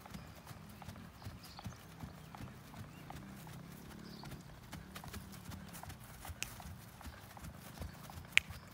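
Hoofbeats of a feathered piebald horse going at a slow, even gait over grass turf, soft and regular. One sharp click stands out near the end.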